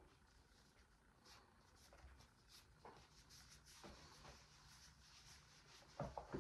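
Near silence: room tone with faint scattered rubbing and light clicks of small objects being handled, and a couple of sharper clicks near the end.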